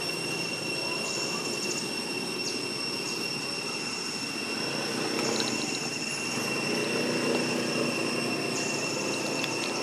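Steady high-pitched insect drone of the kind cicadas make, with a higher buzzing that starts and stops three times: about a second in, around five seconds in and near the end. Under it sits a steady low rumble of background noise.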